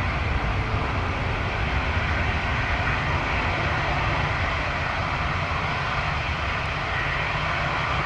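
Twin-engine widebody jet airliner's engines at high thrust during the takeoff roll: a steady low rumble with a hiss over it.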